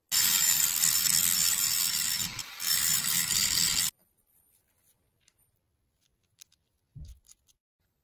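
A loud, harsh rasping noise for nearly four seconds, with a brief dip partway through, cutting off abruptly. It is followed by a few light clicks and a soft low thump near the end.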